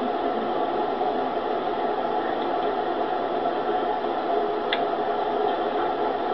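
Steady background hiss with no voices, and one faint click about three-quarters of the way through.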